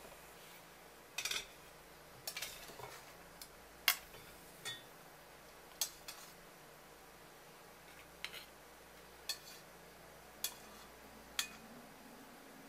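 Metal spoon clinking against a ceramic dish and a metal pot as blanched pike conger pieces are lifted from hot water and set in the dish: about a dozen light, sharp clinks at irregular intervals.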